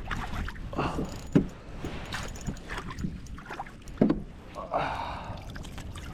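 Wind rumbling on the microphone, with irregular sharp knocks and a brief splash from on and around a kayak while a hooked bass is fought beside it. The loudest knocks come about a second and a half in and again about four seconds in.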